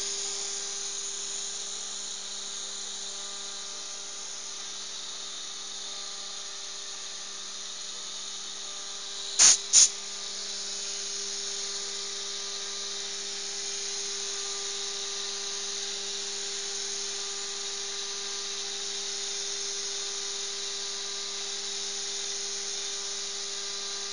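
CNC router spindle running at speed while its small end mill cuts a wood board: a steady high-pitched whine with cutting hiss. Two sharp clicks, a third of a second apart, come about nine and a half seconds in.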